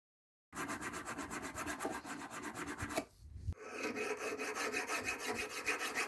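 Hand file rasping over a figure's rough surface, grinding it down in quick back-and-forth strokes about five a second, with a brief pause about halfway through.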